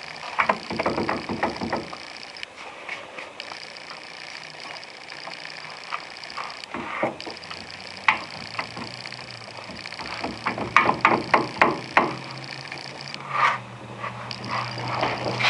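Car disc brake caliper being wiggled and pulled straight back off the rotor after its mounting bolts are removed, in bursts of rapid metallic clicks and rattles, busiest about two-thirds of the way through.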